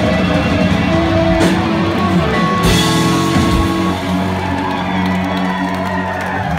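Live rock band playing loud guitars and drums, the guitars holding long ringing notes, with two sharp crashes in the first three seconds.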